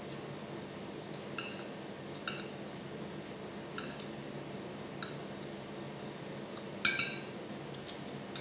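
Metal spoon and fork clinking and scraping against a ceramic plate: a handful of light, ringing clinks spread out, with one louder clink about seven seconds in. A steady low hum runs underneath.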